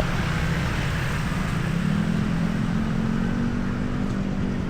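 Street traffic: motor vehicle engines running close by, one rising in pitch about two seconds in and then holding steady.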